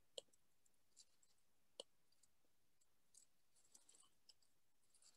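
Near silence with a few faint clicks, the two sharpest about a second and a half apart, from someone working at a computer.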